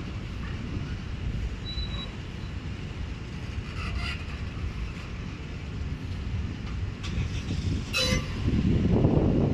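Train rolling past with a steady low rumble, brief high metallic wheel squeals about four seconds in and again near the end. The rumble grows louder in the last second.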